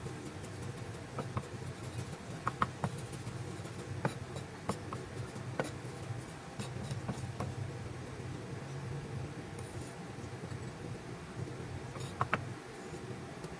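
Chinese cleaver chopping spring onions on a thick wooden chopping block: irregular light knocks of the blade striking the wood, over a steady low hum.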